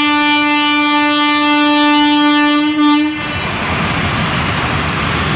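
Indian Railways electric locomotive sounding one long, steady horn blast that stops about three seconds in, followed by the running noise of the passenger train rolling past.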